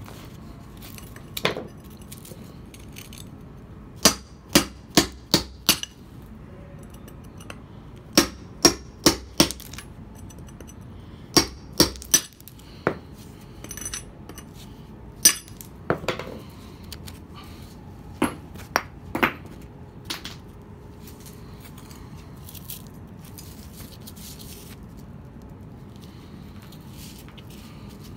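Hammer striking a steel mason's chisel into a stone block, sharp ringing blows in runs of three or four about half a second apart, then singly. The blows stop about 20 seconds in.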